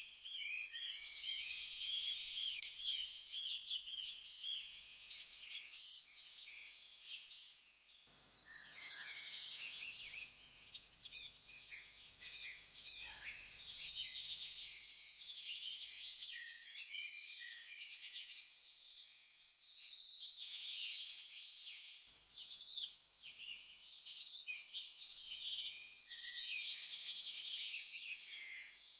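A dense chorus of many small birds chirping and trilling without a break, high-pitched and fairly faint.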